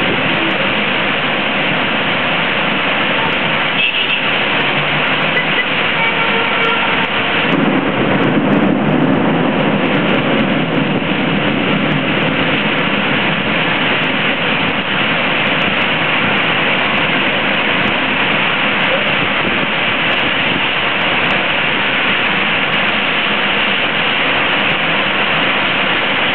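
Heavy rain pouring down on a city street, a steady rush of rain mixed with car tyres hissing through standing water. About eight seconds in the sound grows deeper and louder for a few seconds, then settles back into the even downpour.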